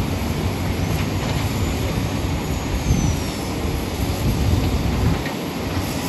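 Heavy diesel construction machinery running steadily: the low, even drone of excavator and dump-truck engines working.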